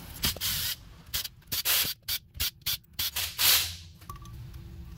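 Aerosol carburetor cleaner hissing out of the can's straw into a Rochester two-barrel carburetor in about ten short bursts, the last one longest and loudest. It is cleaning out the carburetor's clogged idle circuit.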